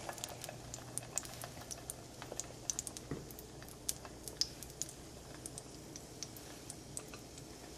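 Faint, irregular crackling and ticking of a floured, egg-dipped chicken cutlet frying in hot butter and olive oil in a skillet.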